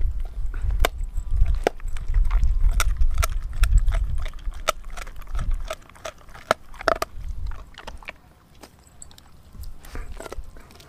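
Doberman gnawing a raw frozen pig's foot: sharp cracks and clicks of teeth on frozen meat and bone, coming irregularly and thinning out after about six seconds. A low rumble runs under the first half.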